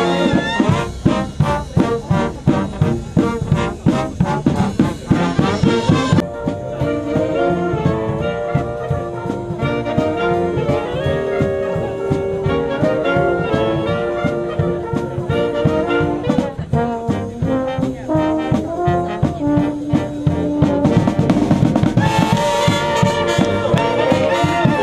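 Military wind band of clarinets, saxophones and brass playing. The music has a sharply accented beat for the first six seconds or so, then smoother held melody lines, and it swells fuller and louder a few seconds before the end.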